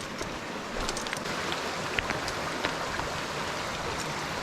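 Creek water running steadily, with scattered sharp clicks of footsteps on rocks.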